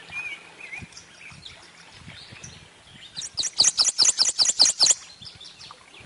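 Prothonotary warbler singing: a quick run of about a dozen loud, ringing, high upslurred notes lasting under two seconds, starting about three seconds in. Fainter bird chirps come in the first second.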